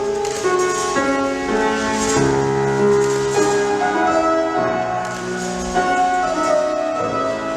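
Piano music playing steadily, held chords and melody notes changing every half second or so, in the style of accompaniment for ballet barre exercises.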